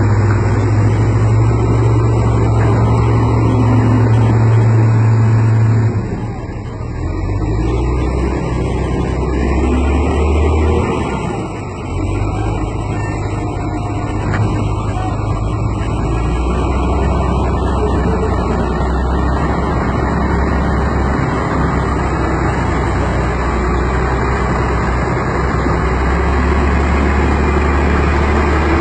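Heavy diesel engines of a wheel loader and a truck running under load as the loader pushes the truck out of mud. A steady low hum drops in pitch about six seconds in, wavers for several seconds, then settles into a steady lower run.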